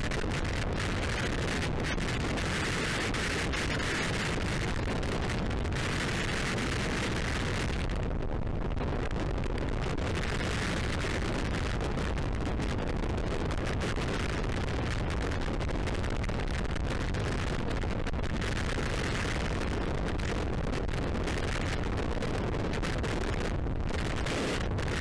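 Rushing wind of skydiving freefall buffeting a camera's microphone: a steady, loud rush with crackling, swelling and easing every few seconds.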